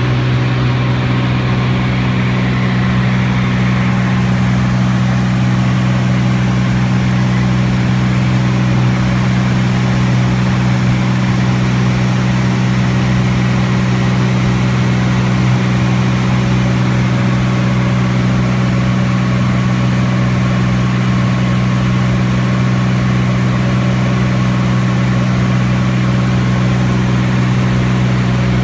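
T-34 Mentor's piston engine and propeller droning steadily at a constant power setting, heard from aboard the aircraft.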